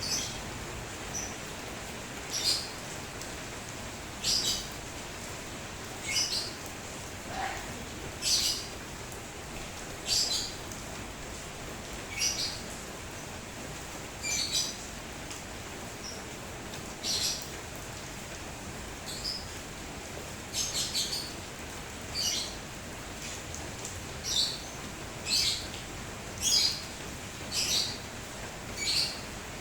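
Bird chirping in short high calls repeated every second or two, coming closer together near the end, with one lower falling note early on, over a steady hiss of rain.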